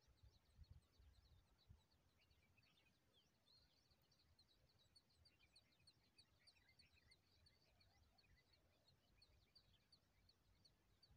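Near silence, with faint, rapid high-pitched chirps of small birds, several a second, over a low rumble.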